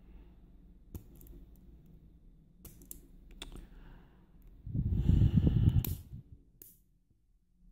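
Small clicks and taps of tools against an Assa oval lock cylinder as its retaining clip is worked at. A louder burst of handling and scraping noise, about a second long, comes a little past the middle and ends in a sharp click.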